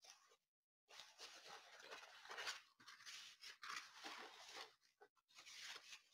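Faint, irregular rustling and crinkling as a rolled diamond painting canvas, with its plastic cover and white paper wrap, is handled and unrolled, starting about a second in.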